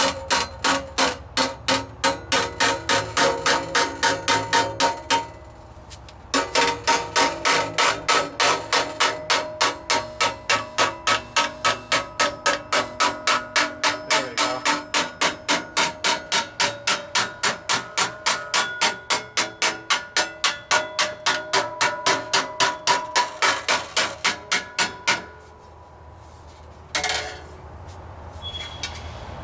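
Hammer striking a steel sheet-metal patch over a block, about four blows a second with the sheet ringing between them, tapping a stiffening bead into the floor-pan patch. The hammering pauses briefly around 5 seconds in, stops about 25 seconds in, and one more knock comes shortly after.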